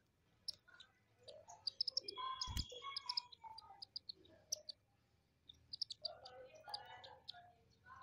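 A small flock of Indian silverbills chirping: many short, high-pitched calls coming in two bouts with a pause between them. There is one brief low thump a little before the middle.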